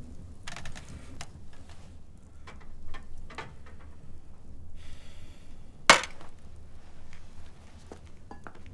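Dishes and utensils being handled on a wooden surface: scattered knocks and clinks with short scraping sounds, and one loud, sharp knock about six seconds in, over a steady low room hum.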